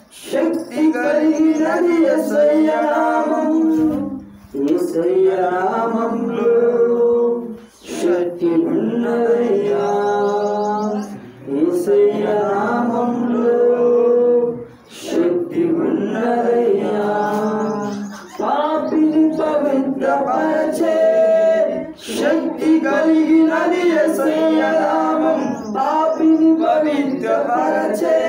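Singing: voices holding long, steady notes in phrases of about three to four seconds, with short breaks between phrases.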